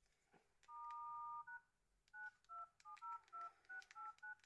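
Nokia 2720a keypad tones as a code is keyed in: one long dual-tone beep, then about ten short dual-tone beeps in quick succession. The code is the kind used to read the phone's life timer of talk hours.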